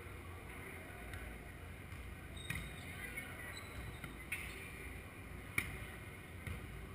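Volleyball being played on a sand court: a few sharp slaps of hands and forearms on the ball about a second apart, the loudest near the end, over a steady low hum.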